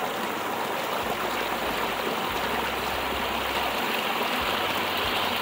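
Small woodland stream splashing down a rocky channel in a series of little cascades: a steady rush of running water, swollen by recent rain.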